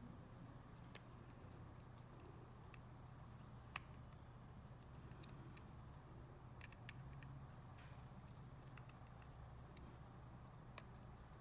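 Near silence with scattered faint clicks of a screwdriver and small screws against a VEX 393 motor's plastic case, a sharper tick about a second in and another about four seconds in, over a low steady hum.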